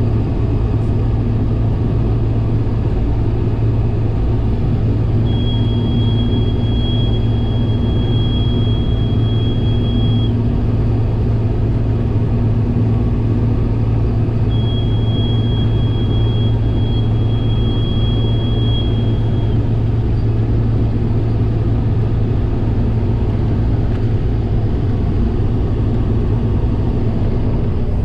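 Combine harvester running steadily while cutting wheat, heard from inside the cab as a constant low hum. A thin high steady tone sounds twice, each time for about five seconds: a cab warning alarm, which the operator puts down to a faulty sensor.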